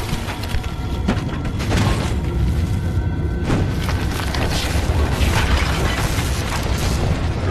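Film sound of an earthquake: a deep, continuous rumble with scattered crashes and clatter of shaking buildings and falling debris, under dramatic music.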